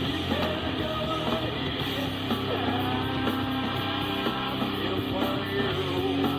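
Rock-style music with guitar played back through a loudspeaker as a listening test.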